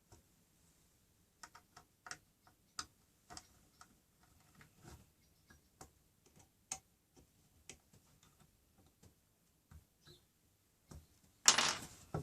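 Light, irregular clicks and ticks of an Allen key and metal connecting bars as grub screws are tightened to join two track-saw guide rails, with a short, louder burst of noise near the end.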